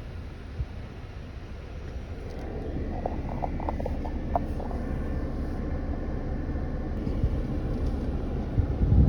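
Off-road 4x4 vehicle crawling over rough trail, its engine and drivetrain rumbling, louder from about two seconds in. A quick run of short knocks sounds around the middle, and a heavy low thump comes near the end.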